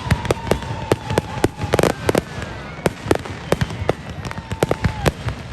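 Fireworks going off in rapid succession: sharp bangs and pops several times a second, with drawn-out whistling tones among them.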